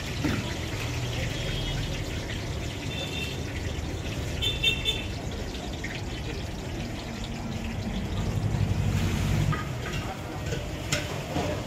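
Hot oil sizzling in a wide iron kadai as balls of Mysore bonda batter deep-fry, over a low street-traffic rumble that swells about eight seconds in. A few brief high chirps come in the first five seconds.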